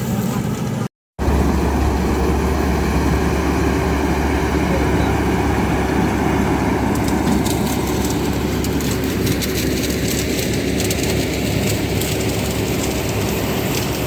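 Heavy diesel farm-machine engine running steadily with a deep, even drone. The sound cuts out briefly about a second in. Light rattling ticks join in during the second half.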